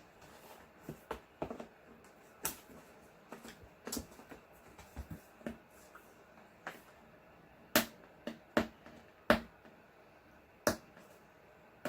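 Hands handling a graphics card's box and packaging: scattered sharp clicks and taps, the loudest four coming between about eight and eleven seconds in.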